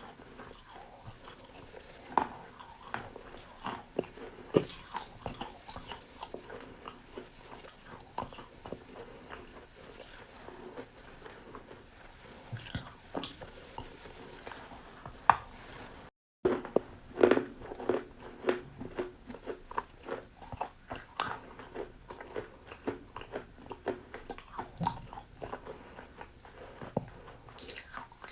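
Crunchy food being bitten and chewed close to the microphone, in irregular sharp cracks and crunches. There is a short break to silence about halfway through, after which the crunching comes thicker.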